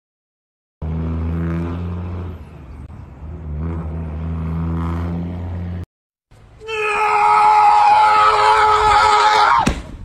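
A vehicle engine idling steadily with a low, even hum. After a cut comes a loud, sustained blaring tone of several pitches from a truck braking hard to avoid a dog on the road, cut off near the end by a sharp knock and a quickly falling tone.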